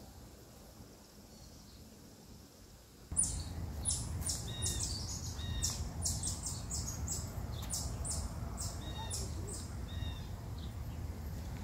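Wild birds chirping in quick repeated high calls with short whistled notes, over a low steady rumble; the sound comes in suddenly about three seconds in after a quieter start.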